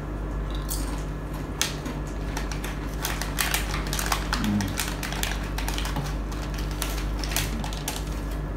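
Crisp clicks and crackles of a crunchy snack sheet being bitten and chewed and its plastic packet being handled, densest about three to four and a half seconds in, over a steady low room hum.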